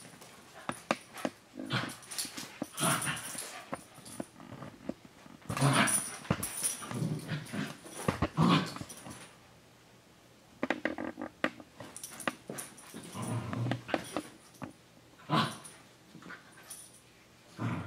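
Cockapoo dog and puppy play-fighting: irregular bursts of playful growling and small whines, broken by short pauses.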